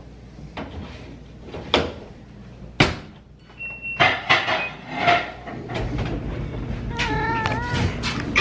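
Front-loading laundry machine door shut with two sharp knocks, a short beep from its control panel, then the machine starting with a steady low hum. A cat meows several times, with a clear run of meows near the end.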